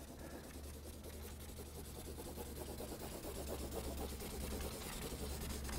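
Felt-tip marker scribbling on paper in quick back-and-forth strokes, colouring in a shape; faint, growing a little louder toward the end, over a steady low hum.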